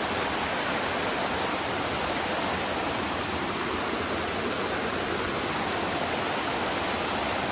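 Donut Falls, Big Cottonwood Creek pouring down through a hole in the rock: a steady, even rush of falling water.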